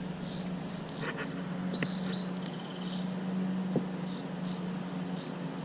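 Outdoor creek ambience: small birds chirping in short calls over a steady low hum.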